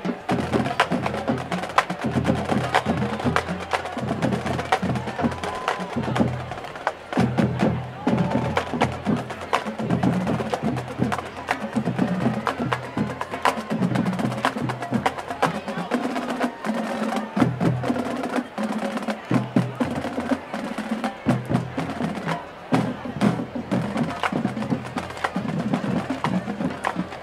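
Marching band drumline playing a cadence: a dense run of sharp drum strokes over low bass-drum hits, with crowd chatter underneath.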